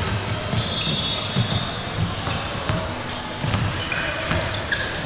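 Basketball dribbled on a gym court during a pickup game: repeated low bounces, with brief high sneaker squeaks and players' voices in a large echoing hall.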